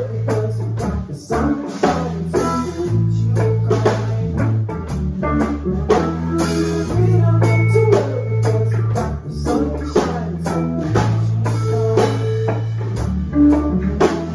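Small live rock band playing: two electric guitars, a bass guitar and a Gretsch drum kit. The bass holds long notes that change every couple of seconds under steady drumming.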